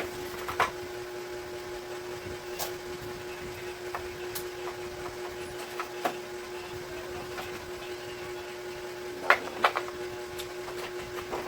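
Scattered clicks and knocks of the air cooler's plastic parts being handled during disassembly, the loudest a pair close together near the end, over a steady hum.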